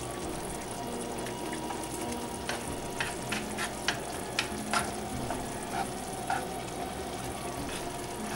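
Glass noodles in sauce sizzling in a pan over high heat while chopsticks and a plastic slotted spatula stir them, scraping and clicking against the pan. A quick run of clicks comes in the middle.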